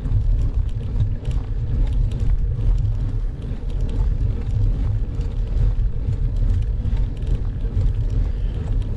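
Wind rumbling on the microphone of a bicycle-mounted camera while riding, mixed with tyre noise on rough asphalt: a steady, fluttering low rumble.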